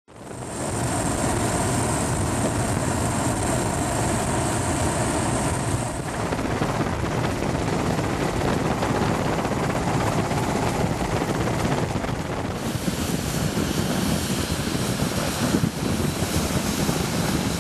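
Steady aircraft engine noise, with a faint high whine over the first six seconds; its character shifts about 6 and 12 seconds in.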